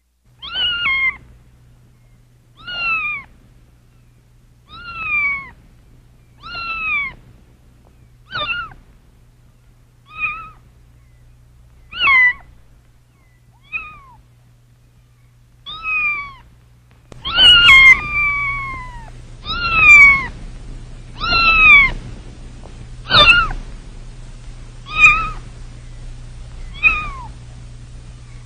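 Kitten meowing over and over, about fifteen short high calls that each fall in pitch, roughly one every two seconds. The calls grow louder a little past halfway.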